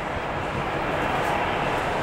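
Boeing 737-700 BBJ's CFM56-7B turbofan engines at taxi power as the jet rolls along the taxiway: a steady rushing noise, with a faint whine coming in about halfway through.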